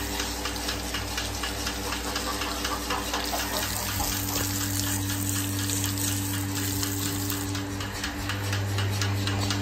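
Water pouring from a hose as hands are washed. Underneath is the steady hum of a portable milking machine's vacuum pump motor.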